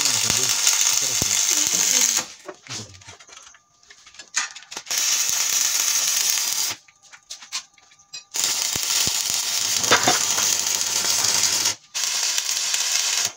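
Electric arc welding on steel: the arc hisses and crackles in four runs of a few seconds each, with short breaks between them.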